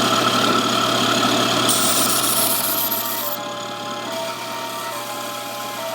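Belt sander running with a steady motor hum and belt hiss, with a louder, harsher hiss for about a second and a half starting a little under two seconds in, then settling back to a steady run.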